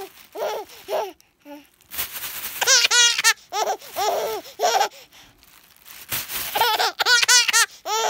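A baby laughing in several bouts of quick, breathy belly laughs, the biggest in the middle and near the end. Twice a plastic bag rustles as it is shaken.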